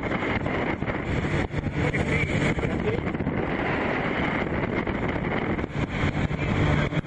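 Engine of a moving vehicle running steadily, with a low hum, under heavy wind noise buffeting the microphone.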